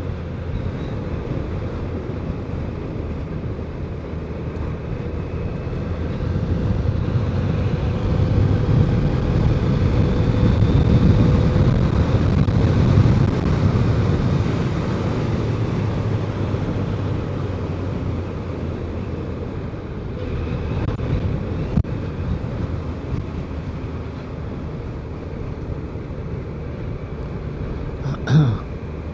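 BMW K1200 inline-four motorcycle under way, engine and wind noise rising in loudness for several seconds as it picks up speed, then easing off. A brief, louder pitched sound comes near the end.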